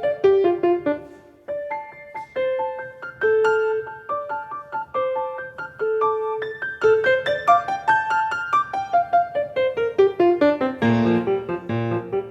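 Piano playing a melodic passage. The sound thins out briefly about a second and a half in, then a melody of held notes follows, and heavier low bass notes come in near the end.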